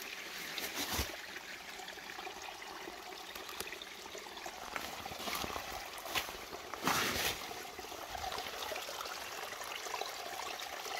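A small mountain spring trickling steadily through undergrowth, with a few brief rustles of leaves and stems being pushed aside, the loudest a little past halfway.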